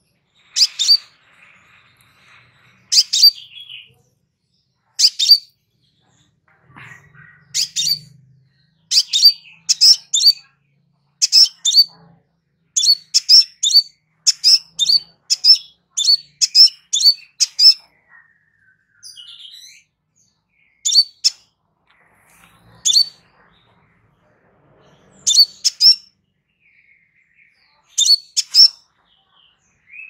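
Crimson sunbird (sepah raja) calling: short, high-pitched chirps in quick clusters, a fast run of notes through the middle and sparser chirps with pauses before and after.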